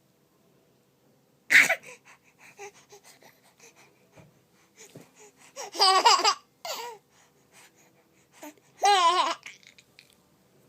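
An infant about 20 weeks old coughs once, then gives two bursts of high-pitched, wavering baby laughter around the middle and again near the end, with a shorter squeal between them.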